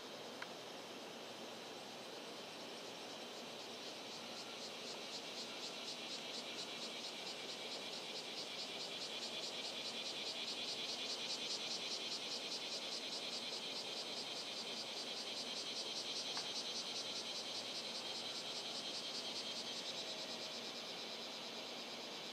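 An insect's high-pitched song of rapid, even pulses, swelling over several seconds to a peak and then fading away near the end.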